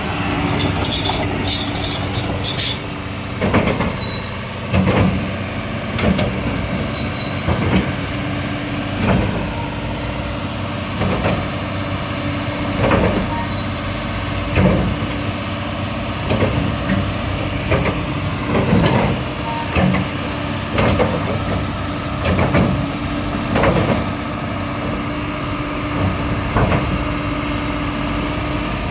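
Doosan DX225 crawler excavator's diesel engine running steadily, with a surge in load every second or two as the machine is worked through its test movements. A quick run of sharp clicks sounds in the first couple of seconds.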